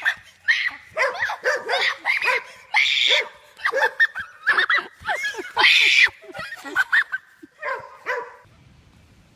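An animal giving a rapid series of short, pitched yelping cries that stops about eight and a half seconds in.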